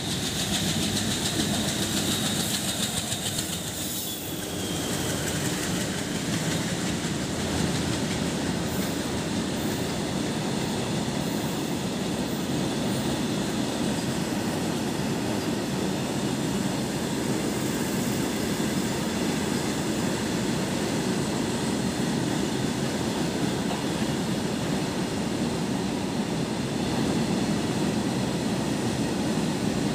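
Indian diesel freight train passing close by: the locomotive goes past first, with a thin high whine that drops a little in pitch over the first few seconds. Then a long string of petroleum tank wagons rolls past, their wheels on the rails making a steady low rumble.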